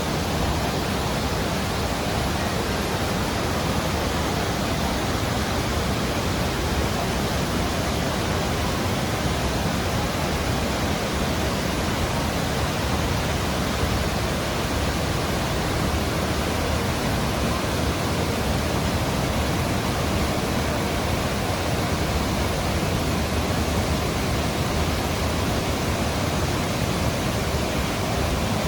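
Vazhachal Falls on the Chalakudy River: a steady, unbroken rush of falling water.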